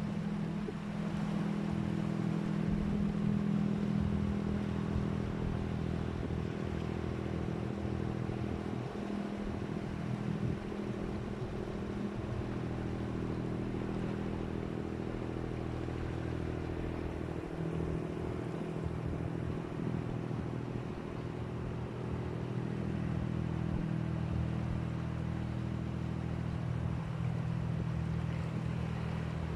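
An engine running at an even speed, a low drone made of several steady tones over a faint, even hiss.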